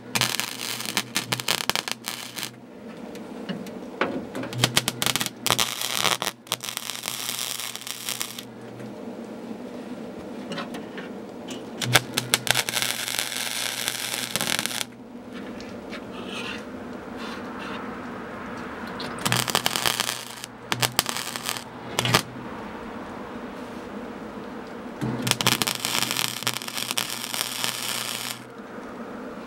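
MIG welder arc crackling in repeated short bursts, from under a second to about three seconds each, with quiet gaps between, as plug welds fill small holes in a truck door's sheet-metal inner panel.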